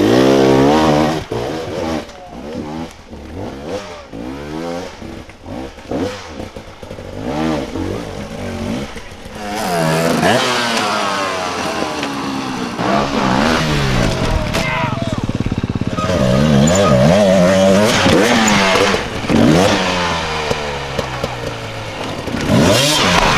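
Enduro dirt bike engines revving hard in repeated bursts, their pitch sweeping up and down, as the bikes struggle for grip on steep ground, with some clattering.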